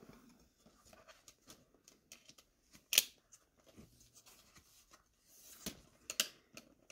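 A plastic DVD case and disc being handled: faint rustling and small clicks, with sharp plastic clicks about three seconds in and twice near the end as the disc is worked off the case's hub.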